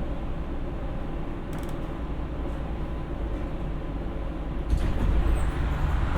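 Steady low rumble inside a Siemens P2000 light-rail car, with faint clicks and creaks; it grows louder about five seconds in.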